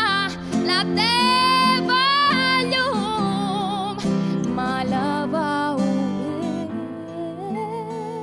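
A song: a voice singing long, wavering held notes over acoustic guitar.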